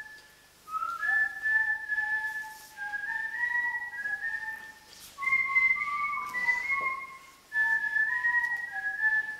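Someone whistling a slow, high tune in four short phrases with brief pauses between them; some notes scoop up into pitch.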